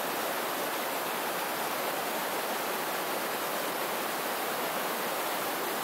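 Steady, even rush of a raging river's fast-flowing water.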